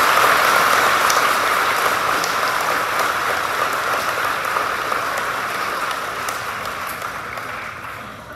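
Crowd applauding: dense clapping, loudest at the start, that slowly tapers off and dies away near the end.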